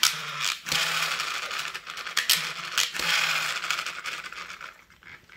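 Spin-art toy's small motor whirring as it spins a paper card, with a rattling buzz and a few sharp knocks. The whir dies away near the end.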